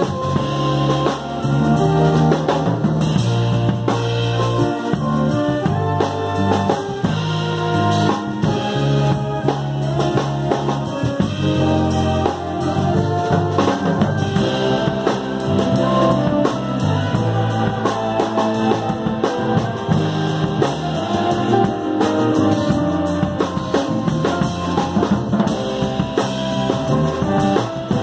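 Jazz big band playing a fusion tune, the drum kit hitting close and loud over trombones, saxophones and guitar.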